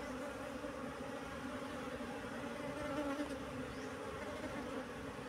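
A colony of honeybees buzzing in a steady, even hum as it is moved onto its comb in a new wooden hive box.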